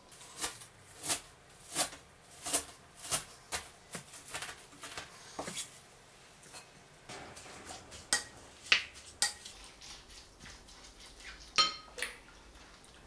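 Kitchen scissors snipping a bunch of wild chives (dallae): a steady run of crisp snips about one and a half a second, then a few more after a pause. Near the end, a single ringing clink against a glass bowl.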